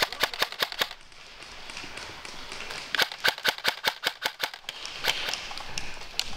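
Airsoft rifle fired in quick runs of sharp snapping shots, about seven a second: one run in the first second, a longer one from about three seconds in, and a few stray shots after.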